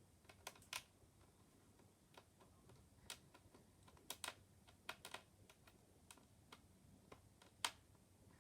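Faint, irregular small clicks of a screwdriver working small screws out of an HP 15 laptop's screen, the loudest click near the end.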